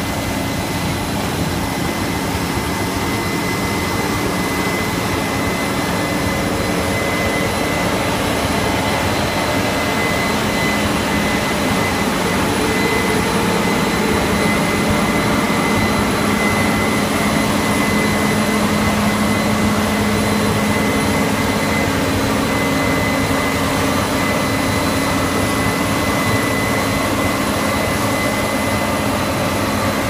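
Case IH 8230 Axial-Flow combine harvester running while harvesting rice. Its engine and threshing machinery make a loud, steady noise with a constant high whine on top.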